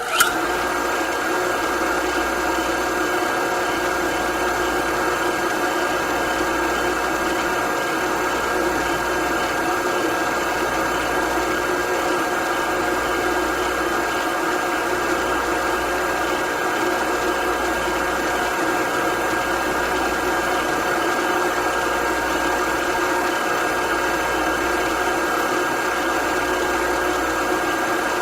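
Electric motor running at a constant speed, a steady hum with a fixed whine.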